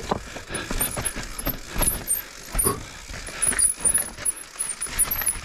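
Mountain bike rolling slowly down rocky steps: irregular knocks as the tyres drop off and strike rocks, with the chain and bike parts rattling and clattering in between.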